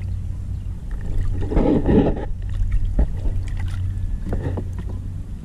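Sea water sloshing and splashing over a steady low rumble, with a louder splash about a second and a half in and a sharp knock about three seconds in.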